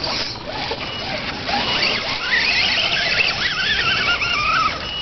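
Electric motor and geared drivetrain of an RC rock crawler whining as it climbs over rocks, the pitch wavering up and down with the throttle.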